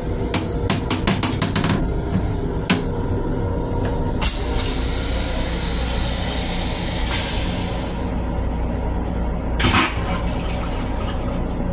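Plastic seat of a railcar toilet being raised with a run of clicks and knocks over the steady rumble and hum of the moving train. The stainless-steel bowl is then flushed: a hiss of rinse water starts a little past four seconds in, and there is a short loud rush near the end.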